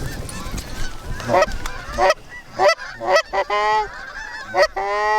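A flock of Canada geese honking, many short honks overlapping, with a couple of longer drawn-out calls near the end.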